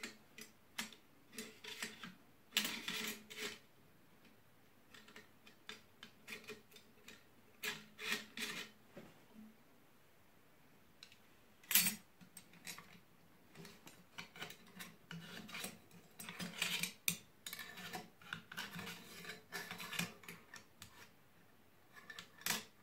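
Metal parts of a Sauer 303 rifle action being handled and fitted by hand: irregular scraping, rubbing and small clicks as a side plate of the cocking rail is worked into the receiver, with one sharp click a little past halfway.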